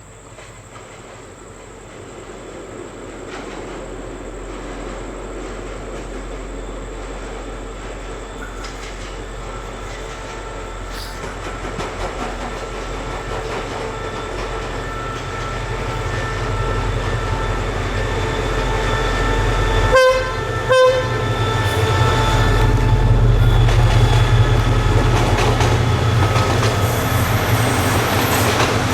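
A diesel-hauled passenger train of ex-Japanese blue-train coaches approaches and grows steadily louder, the locomotive's engine drone deepening as it nears. About two-thirds of the way in, its horn gives two short blasts in quick succession.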